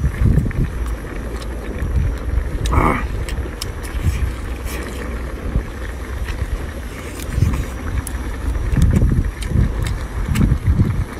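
Wind buffeting the microphone in irregular low rumbles, with light clicks of chopsticks against the wok and rice bowl while a man eats.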